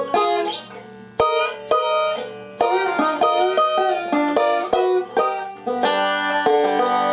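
Five-string resonator banjo picked with fingerpicks: a quick run of plucked notes, left to ring out toward the end.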